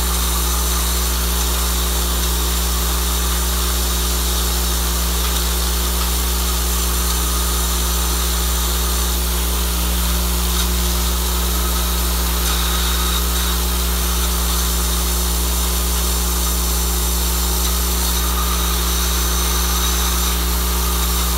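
Vibratory bowl feeder running: a steady low hum from its drive with a continuous rattle of tubes travelling up the bowl's spiral track and along the linear feed track.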